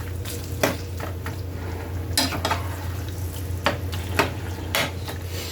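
Ground beef with onions and jalapeños sizzling in a frying pan as it is stirred and broken up with a spatula, with several sharp clicks and scrapes of the spatula against the pan.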